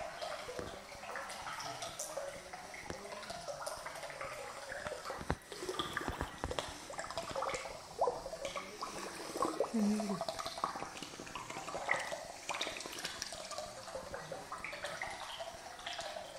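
Swimming pool water lapping and trickling, an irregular wash of small splashes with scattered sharp clicks and drips.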